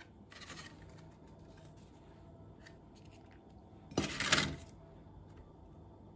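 Kitchen dishes and utensils being handled: a short scrape about half a second in, then a sharp clink followed by about half a second of rattling, the loudest sound, about four seconds in.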